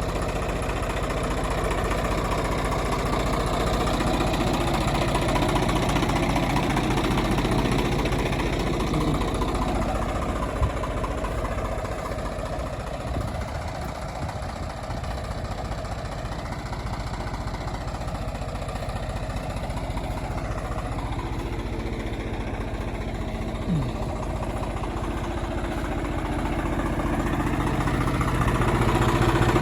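Swaraj 855 tractor's diesel engine running steadily. It eases off slightly in the middle and picks up again near the end.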